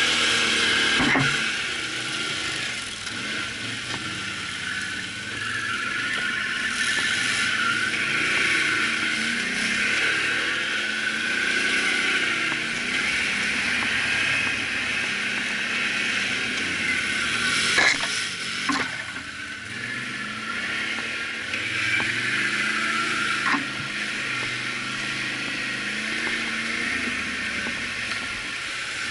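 Can-Am ATV engine running under the rider's throttle, its pitch rising and falling as it is ridden over rough ground, with a few sharp knocks, two of them close together about two-thirds of the way through.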